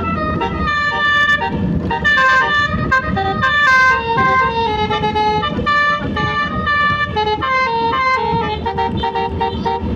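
Basuri telolet musical horn on a vehicle playing a rapid melody of short, stepped notes.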